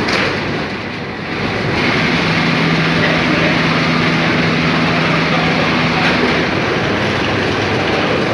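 Semi-automatic weighing, packing and bag-sewing machine running with loud, steady machinery noise; a motor hum comes in about two seconds in and stops about six seconds in.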